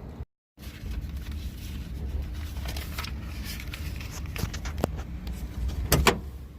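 Suzuki Jimny running with a steady low rumble, scattered light clicks and rattles over it, and a sharper knock about six seconds in.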